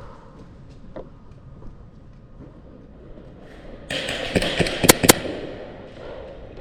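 Airsoft gunfire: about four seconds in, a burst of hiss carries four sharp cracks, the last two the loudest, against quiet background.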